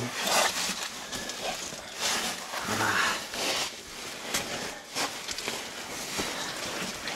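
A caver crawling on his belly through a tight, low cave squeeze: clothing shuffling and scraping over sand and rock, with heavy breathing and a short grunt of effort about three seconds in.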